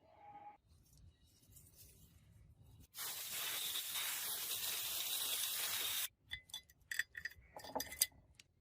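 A steady, loud hiss for about three seconds that cuts off abruptly, followed by a quick series of light metallic clinks.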